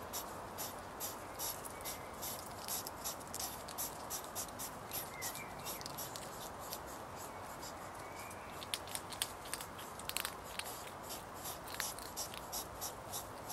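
European hedgehogs chewing food, a run of small crisp crunches about four a second over a faint steady hiss, with a few louder clicks about two-thirds of the way through.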